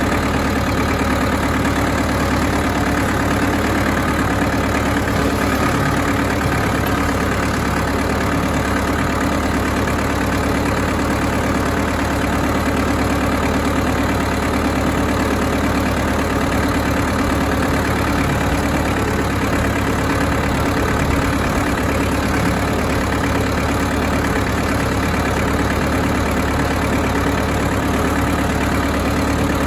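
Ford farm tractor's engine running steadily at an even speed while the tractor is driven forward.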